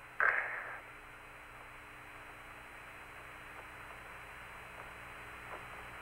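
Steady radio hiss of the Apollo 16 lunar-surface air-to-ground link, confined to the narrow voice band, with a short loud burst of noise just after the start.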